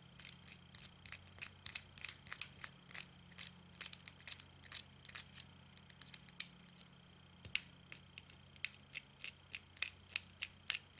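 Small flathead screwdriver turning the tiny screws inside a metal RDA deck's clamp terminals: a run of light metallic clicks, several a second, with a couple of short pauses.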